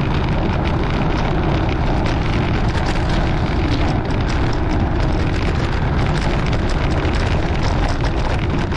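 Wind rushing over the microphone and road noise from a bicycle coasting downhill at about 20 mph on rough, patched pavement. Frequent small rattles from the bike run through it.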